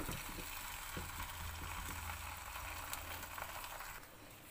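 Ghee sizzling on a hot tawa under a stuffed paratha as it starts to fry: a steady hiss that softens about four seconds in.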